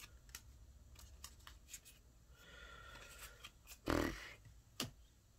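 Trading cards being flipped through and squared into a stack by hand: soft sliding and light clicks of card on card, with one louder scuff about four seconds in and a sharp click shortly after.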